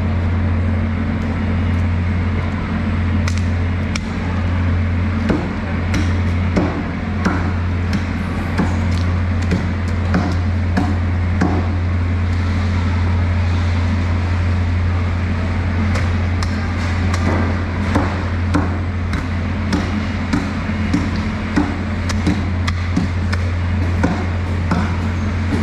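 Irregular sharp knocks and clicks from knife work on a large sailfish lying on a steel-plate floor, over a steady low hum.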